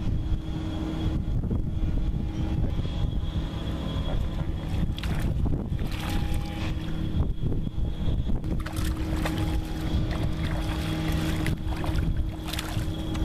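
A boat's motor running steadily as the boat moves across the water, with water rushing and splashing alongside and wind on the microphone, the splashing louder about five seconds in and again through the second half.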